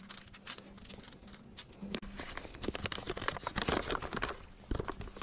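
Paper and tablet blister strips crinkling and rustling in the hands as a folded paper prescription is opened out: a string of light, irregular crackles that get busier around the middle.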